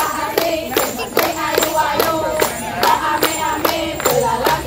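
Dance music with a quick, steady beat of sharp strikes, about two and a half a second, under a melody.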